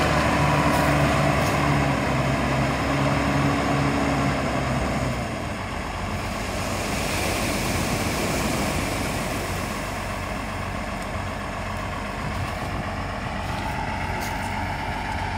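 Wheel loader's diesel engine running steadily; about five seconds in its note drops lower and quieter, as at idle. Surf washes over the pebble beach behind it.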